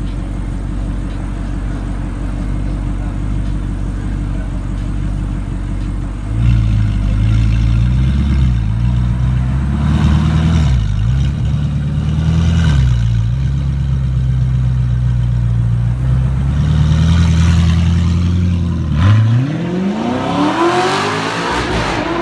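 Audi R8 engine idling. About six seconds in it rises to a louder, higher idle with a few short throttle blips. Near the end a car engine revs up, its note rising steeply.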